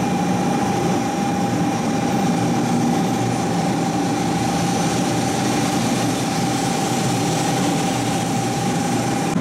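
500 Series Shinkansen pulling slowly into a station platform: a steady rumble from the train, with a steady high tone held throughout that cuts off near the end.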